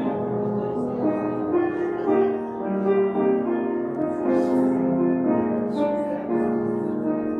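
Church postlude played on a keyboard instrument after the dismissal: slow, held notes moving in a gentle melody over chords.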